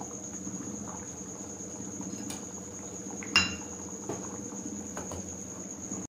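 Chickpea curry topped with ghee simmering in a steel pan on a gas burner, popping softly now and then. There is one sharper metallic clink about three and a half seconds in, and a steady high-pitched whine throughout.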